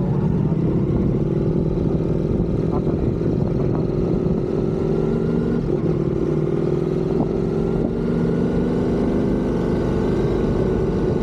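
Motorcycle engine running at a steady cruise, its pitch drifting slowly up and down, over a low wind rumble.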